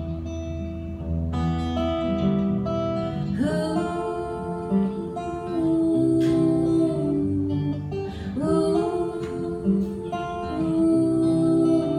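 Strummed acoustic guitar playing a folk song's chords, with wordless vocals that scoop up into long held notes twice, about four seconds in and again about eight and a half seconds in.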